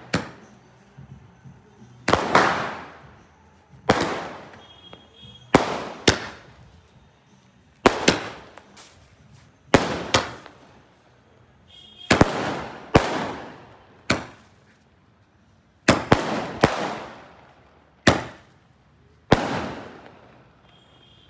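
A 12-shot aerial firework cake firing, a sharp bang every one to two seconds, each followed by a fading echo.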